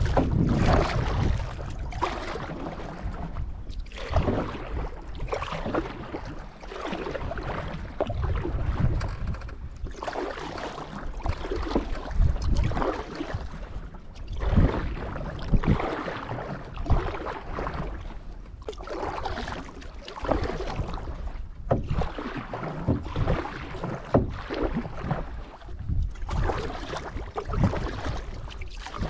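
Canoe paddle strokes, with water swishing and splashing along the paddle and hull in surges every second or two. A low rumble of wind on the microphone runs underneath.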